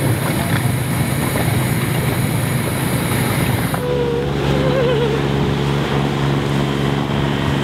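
Outboard motor of a small open skiff running at steady speed as it passes, over the wash of water. The engine's tone changes abruptly about four seconds in.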